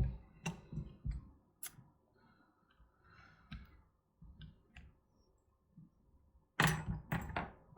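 A few separate sharp clicks and light knocks of small hard objects being handled on a workbench, spaced irregularly over several seconds, then a brief voice near the end.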